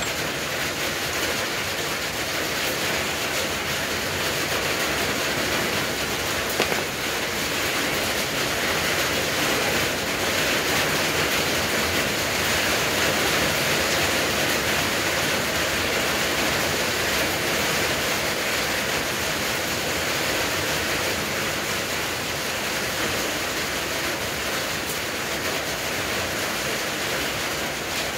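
Hand-held propane torch on a blue cylinder burning with a steady rushing hiss, a little louder through the middle stretch.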